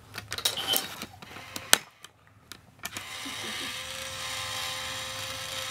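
Light clicks and taps as a coin is set on the lid of a battery-operated Tora cat coin bank, then after a short pause, about three seconds in, the toy's small gear motor starts and whirs steadily as the cat pushes up out of the lid to take the coin.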